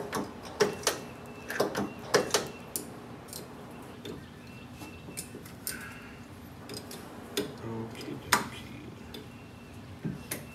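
Sharp metallic clicks and clinks of hand tools on the front brake and chassis, several in quick succession in the first couple of seconds and a single loud one near the end.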